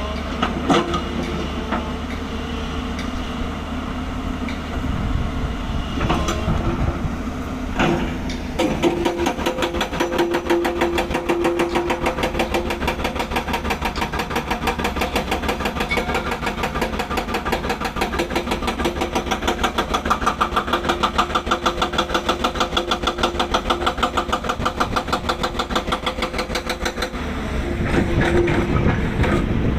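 A heavy engine running steadily. From about eight seconds in it takes on a regular pulsing beat, with a couple of short knocks just before.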